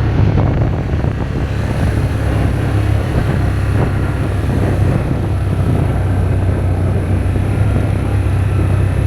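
Steady, loud, low engine drone that holds level throughout.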